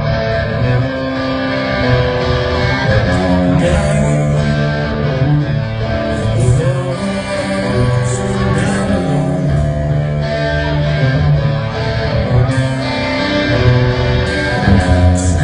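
Local rock band playing live, amplified music.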